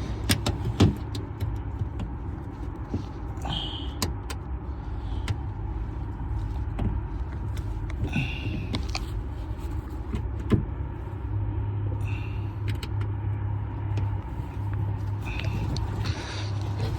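Hands working a car's plastic tail light assembly loose from its mounting tabs: scattered clicks and a few short squeaks, over a steady low hum.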